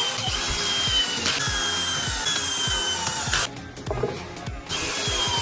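Power tool running in two spells, its whine falling slowly in pitch, stopping a little past halfway and starting again near the end, over background music with a steady beat.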